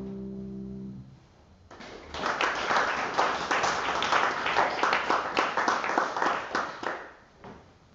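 A held chord on a brass instrument with keyboard ends about a second in. Then the congregation applauds for about five seconds, tapering off near the end.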